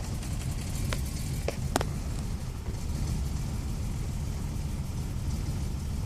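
1993 Toyota Camry's V6 engine running with a steady low rumble while misfiring: cylinder 3 is dead from a bad fuel injector, the other injectors are dirty and the spark plug wires are bad. A few short clicks sound in the first two seconds.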